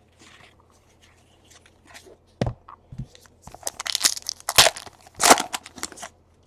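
Plastic wrapper of a trading-card pack being torn open and crinkled, with a couple of sharp knocks from handling about two and a half seconds in and the loudest tearing in the last few seconds.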